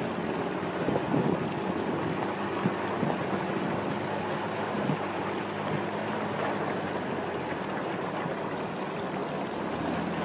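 Water churning and splashing along the side of an off-road vehicle wading through deep water, with the engine running steadily underneath.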